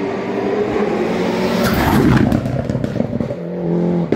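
Hill-climb race car engine at full throttle as the car passes close by, loudest about two seconds in. After a sudden change near the end, another engine is heard at a steady note in the distance.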